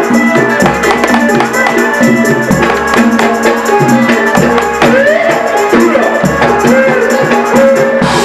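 Loud traditional Indonesian folk music for a can macanan performance: drums and jingling percussion over a low beat repeating about every second and a half, with a melody line that slides up and down.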